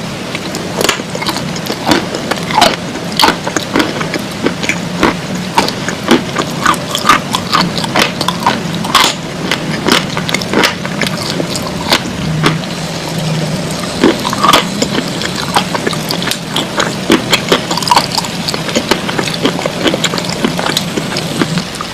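Close-miked eating of edible khawa clay: irregular crunches and clicks, often several a second, as the clay is bitten and chewed, over a steady low hum.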